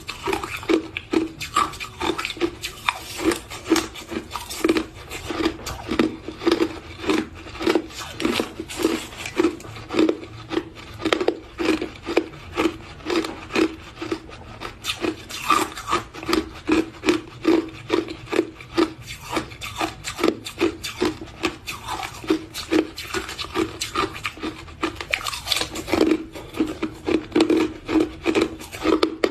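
Crushed ice being chewed close to the microphone: a steady run of crisp crunches, about two to three a second.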